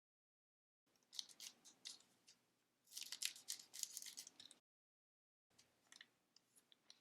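Trading cards being handled and slid against one another: a run of light scraping and clicking for a few seconds, then a few faint ticks near the end.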